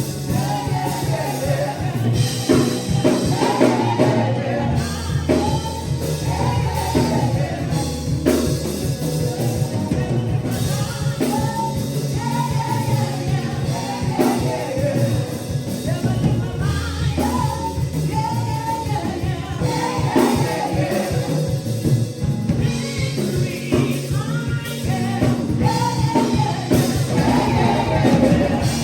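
Gospel music: singing over a drum kit and a steady bass line.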